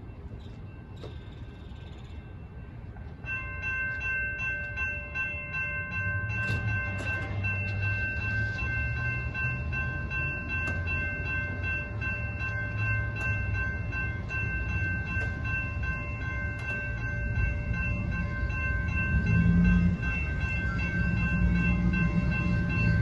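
Railroad grade-crossing warning bell starts ringing about three seconds in and keeps ringing steadily as the gates come down. Underneath it, a low rumble of an approaching freight train builds and grows louder.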